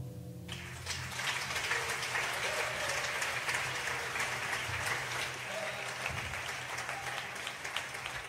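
The band's last chord dies away in the first half second, then a concert audience applauds. The clapping is thick at first and thins a little toward the end.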